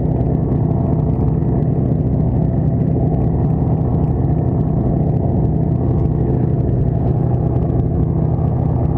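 Party boat's engine running as a steady, unbroken drone of low, evenly spaced tones.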